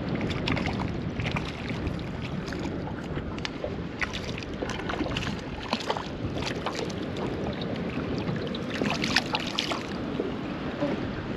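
Water slapping and lapping against the hull of a small boat, with wind on the microphone and scattered short knocks and splashy ticks.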